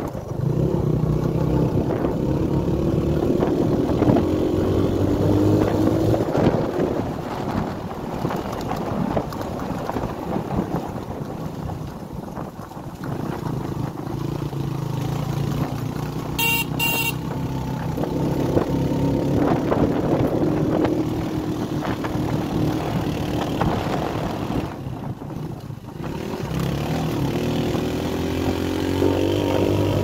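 Heavy motorbike's engine running under load on a climb, its pitch rising and falling as the rider opens and eases the throttle and changes gear. Two quick horn beeps come about halfway through.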